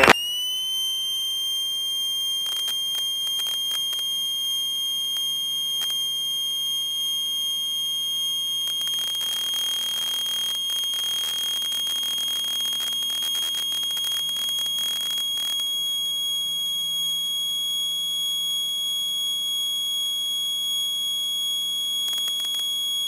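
A steady, high-pitched electronic tone with overtones, like an alarm held on without a break. It settles onto its pitch within the first half second and stays at an even level.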